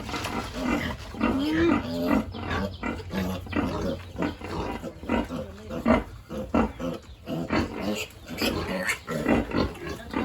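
Pigs grunting, many short calls close together, some with a brief pitch glide. A steady low hum runs underneath.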